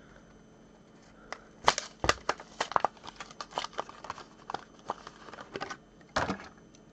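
Plastic blister and cardboard backing of a Hot Wheels car package being torn open and handled: after about a second of quiet, a run of crinkles, cracks and clicks, with a louder crackle near the end.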